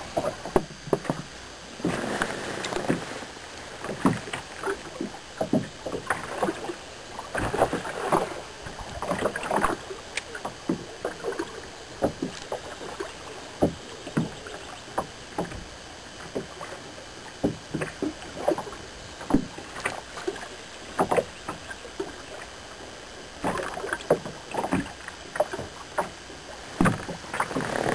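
Small waves lapping and slapping irregularly against the hull of a small fishing boat, in short uneven splashes over a steady low wash.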